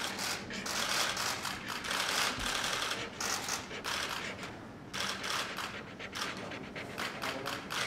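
Many camera shutters clicking rapidly and continuously, overlapping in a dense irregular rattle that eases off briefly a little before the midpoint.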